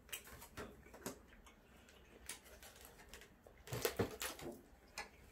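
Scattered faint clicks and taps of eating at a table: a clear plastic food container being handled and hands at plates, with a short cluster of louder clicks near the end.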